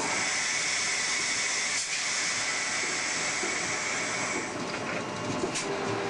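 Air hissing steadily in the cab of a VIA Rail F40PH-2 locomotive as the engineer works the brake handle; it starts suddenly and stops after about four and a half seconds. Underneath runs the steady rolling noise of the moving train.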